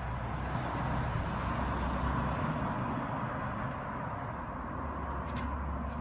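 Steady outdoor background rumble and hiss that swells a little about a second in, with one faint click near the end.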